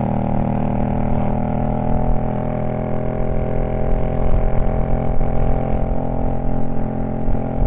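Honda Shadow V-twin engine running at a steady, unchanging pitch while cruising, with wind rumble on the helmet-mounted microphone.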